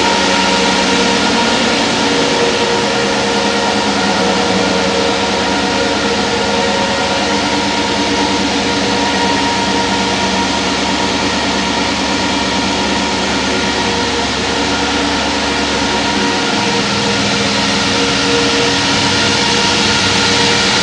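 2008 Cadillac Escalade ESV stretch limousine's 6.2-litre V8 idling, a steady hum under a loud, even hiss. The deepest part of the hum drops away about three-quarters of the way through.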